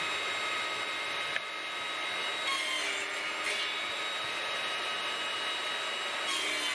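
Table saw running steadily, with a wooden crosscut sled being slid across the saw table during test cuts.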